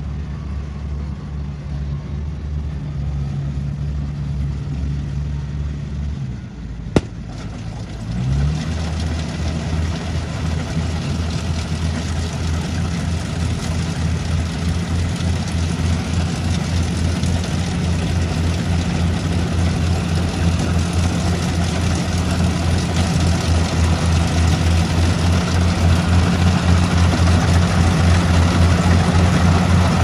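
Rice combine harvester's diesel engine running steadily under load, with the rush of the cutting and threshing works over it. About six seconds in, the engine note sags and a single sharp click is heard, then the engine picks back up. From there it grows gradually louder.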